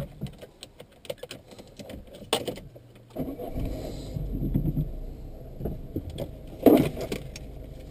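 Scattered light clicks and knocks, then a car's low engine rumble setting in about three seconds in, with a louder knock near the end.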